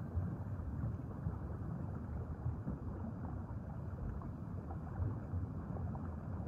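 Steady low rushing and rumbling underwater ambience, an even wash of water noise with no distinct events.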